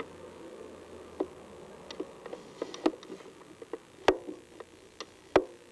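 Irregular light clicks and taps, about a dozen scattered unevenly over a few seconds, the sharpest about four seconds in and again near the end, over a faint room background.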